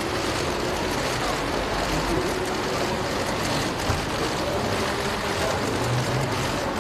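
Steady outdoor background noise of vehicles running nearby, an even hiss with no single event standing out.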